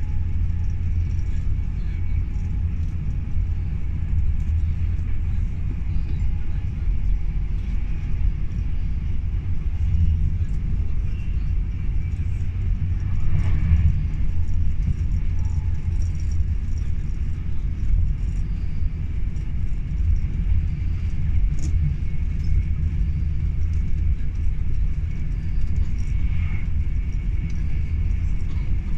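Steady low rumble of wheels on rail heard inside a Class 390 Pendolino electric train running at speed, with a brief louder swell about halfway through.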